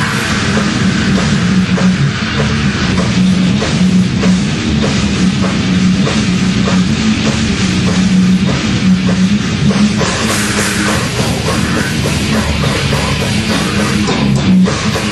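Heavy metal band playing live: loud distorted guitars and bass over dense, fast drumming on a full drum kit. The cymbals get brighter about ten seconds in.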